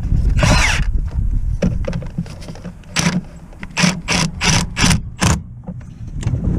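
Mechanic's tool work on a car: a brief hiss, then a quick run of about six sharp metallic knocks over a low rumble.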